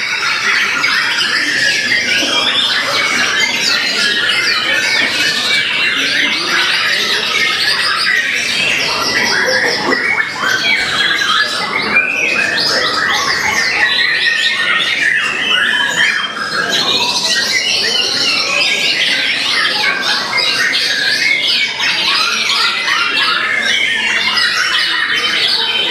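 White-rumped shama singing nonstop: a rapid, densely packed run of varied phrases and mimicked calls of other birds (its isian fill repertoire).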